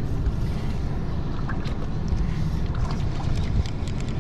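Wind buffeting the microphone on an open boat: a steady low rumble, with faint small ticks scattered through it.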